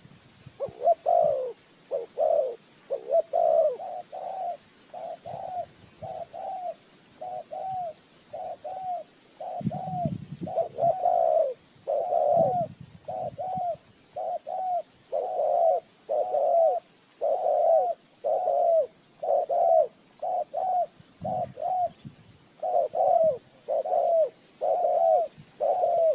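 Spotted doves cooing, a steady series of short, arched coo notes repeating about one to two a second, the kind of call used as a decoy to draw wild doves to a trap.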